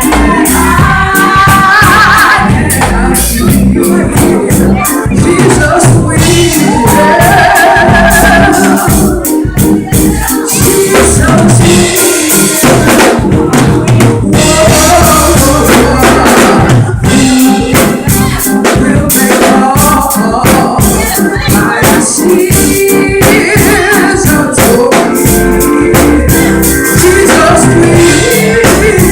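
Live gospel music: a singer and group vocals over a full drum kit, tambourine and band.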